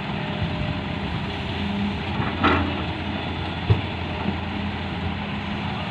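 Heavy-equipment diesel engine running steadily, with a knock about two and a half seconds in and a sharper one about a second later.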